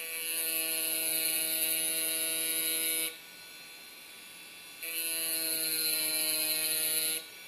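A diamond tip on a small rotary tool grinding into a glass tumbler, in two stretches of a steady, high buzzing grind. The first lasts about three seconds and the second about two and a half. Between them the tool's fainter motor buzz carries on.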